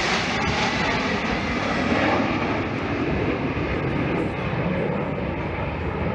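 A formation of Snowbirds CT-114 Tutor jet trainers flying over, making a loud steady jet-engine noise. It peaks about two seconds in and eases slightly after.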